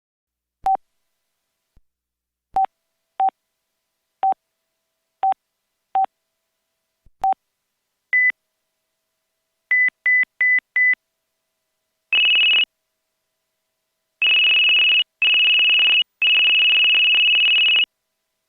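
LG VX5200 flip phone's electronic alert beeps, played without a speaker in between. First come seven short, lower beeps at uneven spacing. Then its ringer beep patterns follow in turn: a single higher beep, four quick beeps, a still higher single longer beep, and three long beeps.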